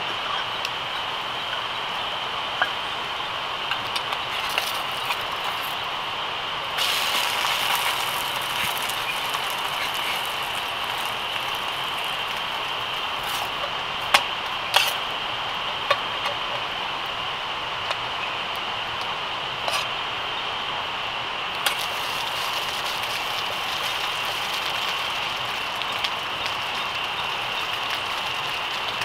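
Steady chirring of night insects with the hiss of a portable gas canister stove burner, which comes up suddenly about seven seconds in. A few sharp clinks of metal cookware and utensils are heard, the loudest two close together in the middle.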